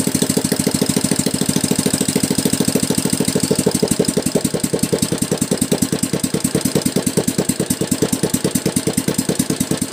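Small single-cylinder OHV engine running at idle with an even firing beat; about three to four seconds in, the beat slows to a lower idle with more distinct pulses.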